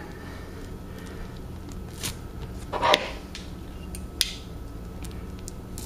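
A shrink-wrapped cardboard board-game box being handled: a few light taps and rustles, the loudest a knock about three seconds in, over a low steady hum.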